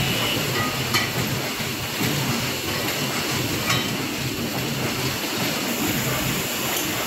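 Steady mechanical noise of machinery running in a corrugated-box factory. Two sharp knocks stand out, about a second in and again nearly four seconds in.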